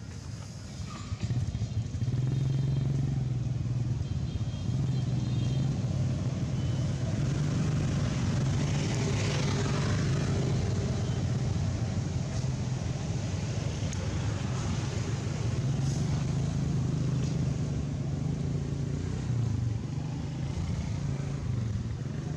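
A motor engine running steadily, a low even hum that comes up about a second or two in and holds at the same pitch.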